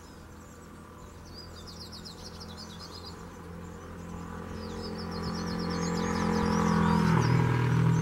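Male hooded siskin singing: two phrases of fast, high twittering trills, the second longer. Under it a low engine hum grows steadily louder and is the loudest sound near the end.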